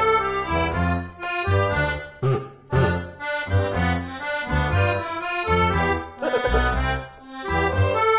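Background instrumental music with a steady bass beat.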